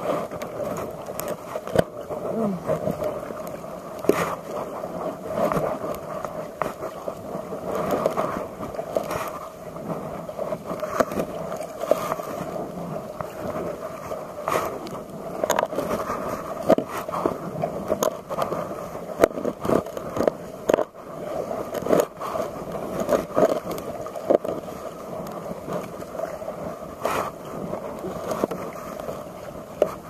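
Paddling a plastic sit-on-top kayak: water splashing and sloshing with the paddle strokes, with frequent sharp knocks and clatter.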